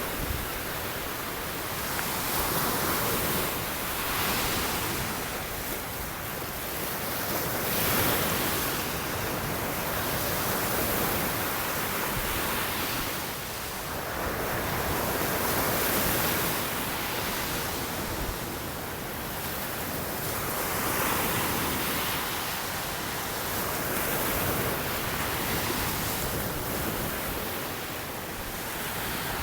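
Ocean surf breaking and washing up on a sandy beach, the rush of noise swelling and falling back every few seconds, with some wind on the microphone.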